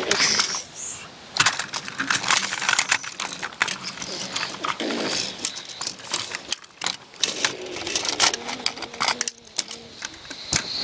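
Small toy train engines pushed and handled by hand on a wooden table, making a run of quick, irregular clicks, knocks and clatters.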